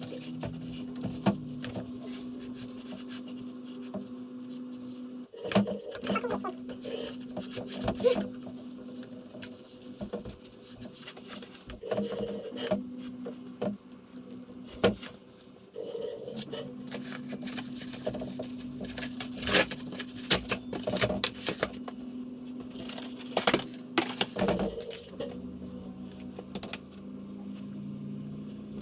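A large framed mirror being lifted onto two wall screws and adjusted: irregular knocks, taps and scrapes of the frame against the wall. A steady low tone runs underneath and changes pitch a few times.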